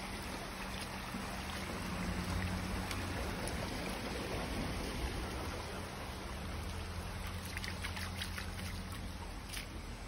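Shallow creek water running and trickling steadily over rock, with a few faint splashes near the end.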